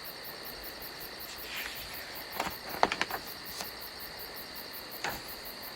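Jungle ambience sound effect: a steady chorus of crickets and insects with a fast, even pulsing chirp, and a few short chirps dotted through it.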